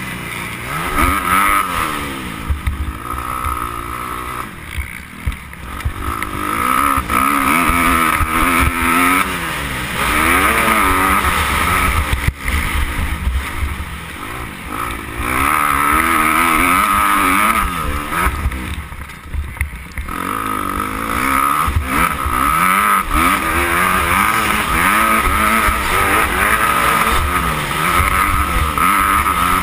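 Motocross bike engine ridden hard, heard from the bike, its pitch climbing and falling again and again through throttle and gear changes. The engine drops off briefly twice, about five seconds in and again about two-thirds of the way through.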